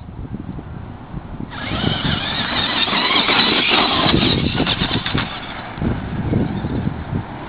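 Traxxas Monster Mutt RC monster truck driving on gravel: its stock brushed electric motor whines under throttle while the tyres crunch over the dirt, getting much louder about one and a half seconds in as it comes close. Wind rumbles on the microphone throughout.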